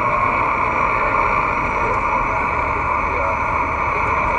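Cobra 148-GTL CB radio's speaker giving a steady hiss of band noise while it receives on 11-metre lower sideband, with faint wavering traces under the hiss.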